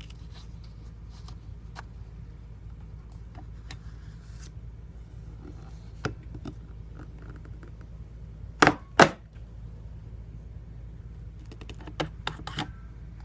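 Paper and handling clicks, then a metal 3-hole punch pressed down through a 12-sheet stack: two sharp, loud thumps in quick succession a little past the middle, followed by a few lighter clicks near the end.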